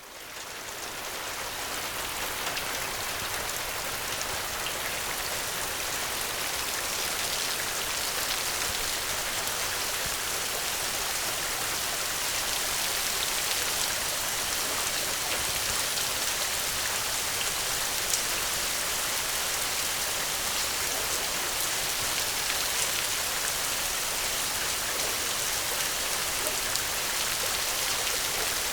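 Steady, dense rainfall, a continuous even hiss that swells up over the first couple of seconds and then holds. A single sharp tick stands out about two-thirds of the way through.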